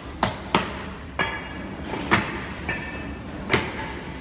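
Sharp knocks and clanks of metal-cased LED dance floor panels being pressed and seated into the floor frame, about five hits, some with a short metallic ring. A steady low hum runs underneath.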